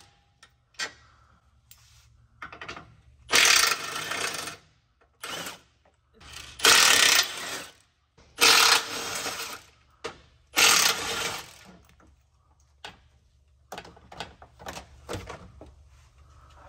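Cordless impact gun running in bursts of about a second, four loud runs and several short ones, as it backs out the bolts of a plastic underbody shield. Light clicks and rattles of parts being handled near the end.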